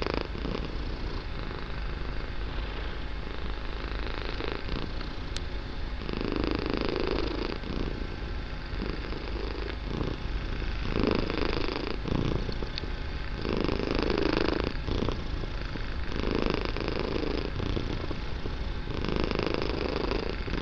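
Kitten purring very loudly and continuously, the purr swelling louder with each breath every two to three seconds.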